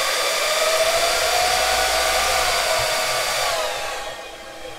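Loud steady rushing of a cooling fan on the test bench running while the amplifier is driven into a 1-ohm load, its pitch rising slightly and then winding down about three and a half seconds in as the test ends.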